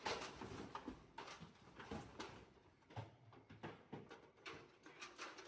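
Pigs being handled: a run of irregular knocks, scrapes and scuffling of bodies and hooves.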